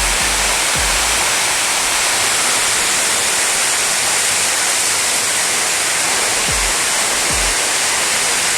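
Waterfall: a steady, loud rush of falling water, with a few brief low thuds.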